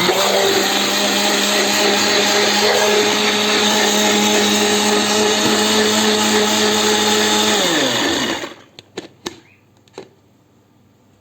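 Electric blender running steadily, grinding grated beetroot with very little water into a thick juice. About eight seconds in the motor is switched off and winds down, its pitch dropping, followed by a few light knocks.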